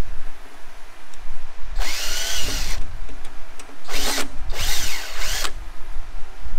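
DeWalt cordless drill run in three short bursts, the motor's pitch rising and falling with each pull of the trigger, its bit in a hole in the welder's steel side panel.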